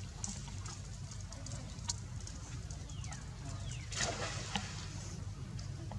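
Water lapping and splashing as monkeys swim, with a louder splash about four seconds in. Just before it come two short squeaks that fall in pitch.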